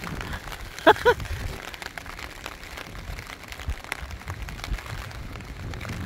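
Rain falling in strong wind: a steady wash of noise with a low rumble of wind on the microphone and scattered drop ticks. A short voiced exclamation comes about a second in.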